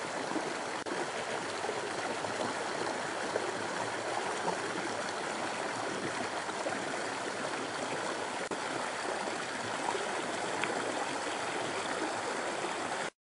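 Small mountain creek spilling over a low V-weir into a plunge pool: a steady rushing, splashing flow of water that cuts off abruptly near the end.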